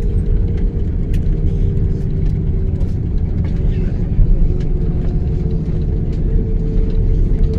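Airliner cabin noise: the steady low rumble of the jet in flight or on the ground, with a steady hum over it and a few faint clicks.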